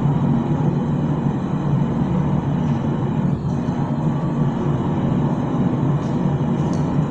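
Steady low rumble at an even level, with no hammer blows.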